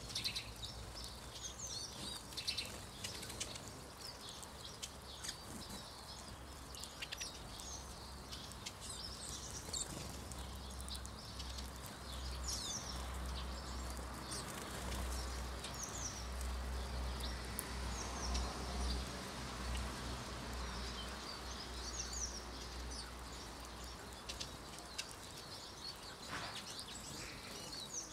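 Scattered short, high chirps and twitters from a flock of Eurasian siskins, over a steady low rumble that grows louder through the middle stretch.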